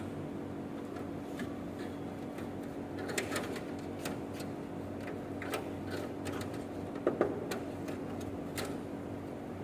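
Irregular light plastic clicks and taps from handling an air conditioner indoor unit's filter and panel, with a pair of sharper knocks about seven seconds in, over a steady hum.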